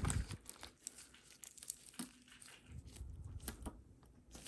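Faint crinkling of a bag and scattered light clicks of costume jewelry being handled.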